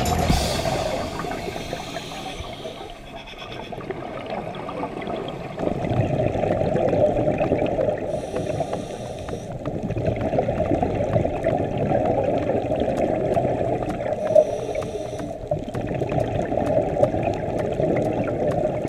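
Muffled underwater bubbling and gurgling from a scuba diver's regulator exhaust, with two brief higher hisses of the regulator about eight and fourteen seconds in.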